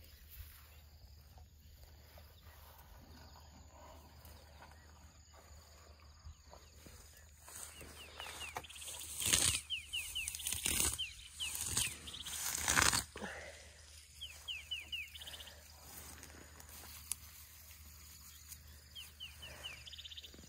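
Young African elephant tearing up grass with her trunk and munching it close by: a few loud rustling, crunching bursts come in the middle, after a quieter start.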